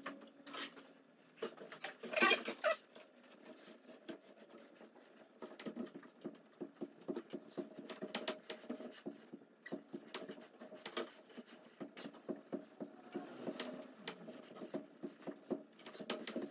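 A hand tap cutting a thread into a milling-machine spindle, turned with a T-handle tap wrench: a run of small clicks and creaks from about five seconds in. A short pitched cry about two seconds in.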